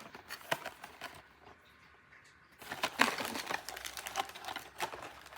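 Snack packages being handled and sorted: scattered light clicks and crinkling of wrappers and boxes, with a quiet pause about a second in before the handling picks up again.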